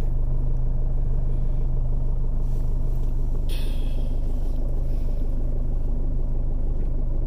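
2005 Jeep Liberty CRD's 2.8-litre VM Motori four-cylinder turbodiesel idling steadily, heard from inside the cabin, with a couple of brief rustles a few seconds in.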